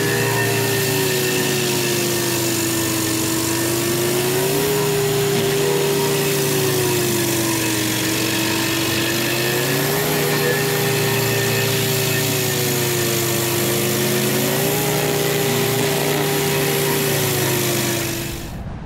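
Rayco RG74T-R stump grinder running hard, its diesel engine and spinning cutter wheel grinding a stump into chips. The engine pitch sags slowly and picks back up three times as the wheel is worked into the wood, and the sound drops away near the end.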